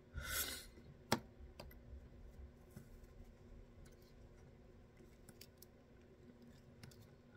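Whip-finish tool wrapping tying thread around the head of a fly in the vise: faint clicks and rustles of the tool and thread, with a short rustle near the start and one sharp click about a second in.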